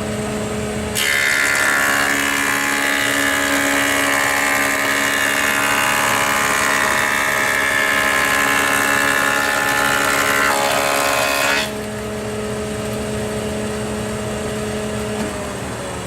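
Rockwell Delta 22-101 thickness planer running steadily. About a second in, a board goes through and the cutterhead cuts loudly for about ten seconds, then the machine runs free again. Near the end the motor is switched off and its hum falls in pitch as it winds down.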